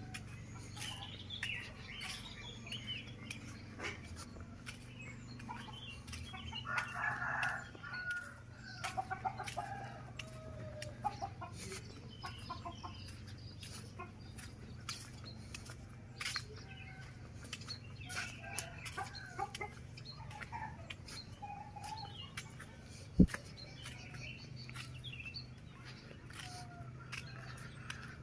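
Village chickens: a rooster crowing, loudest about seven seconds in, and hens clucking, with small birds chirping. Underneath are a low steady hum and scattered light clicks, and there is one sharp knock about 23 seconds in.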